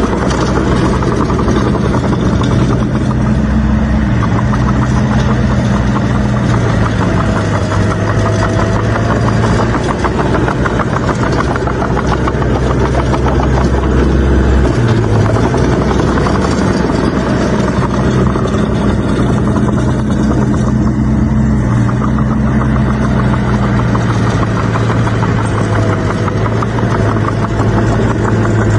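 Heavy diesel engine of earthmoving machinery running steadily under load. Its low drone drops out and changes pitch about halfway through.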